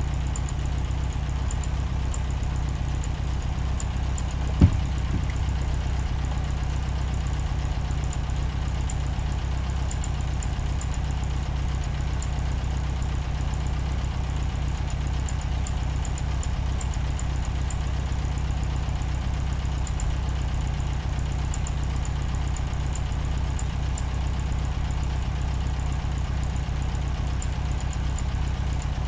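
A steady, unchanging low mechanical hum, like a motor running, with a single sharp knock about five seconds in.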